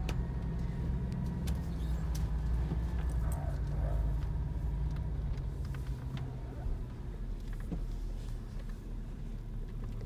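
Car engine and road noise heard from inside the cabin while driving slowly: a steady low hum that eases off about seven seconds in.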